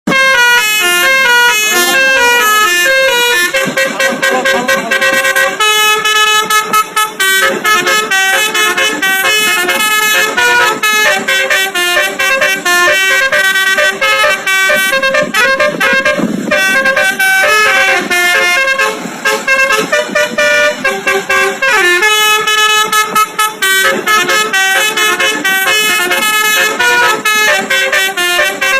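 Basuri 'telolet' multi-tone horn playing a fast melody of short stepped notes, several tones sounding together, with almost no pause between them.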